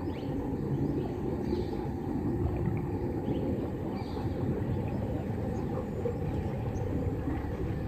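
Maruti Gypsy safari jeep's engine running steadily as it drives over a rough forest track, a low even rumble.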